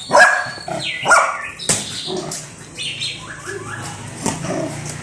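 A young golden puppy barking in short, high yaps: a few sharp ones in the first two seconds, then softer yips.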